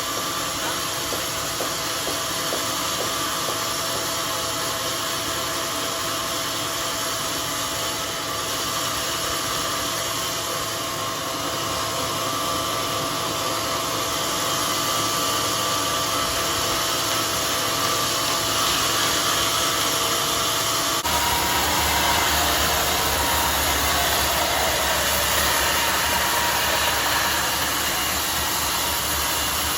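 Homemade sawmill running steadily while sawing mahogany. About two-thirds of the way through the sound changes abruptly, with a deeper hum coming in.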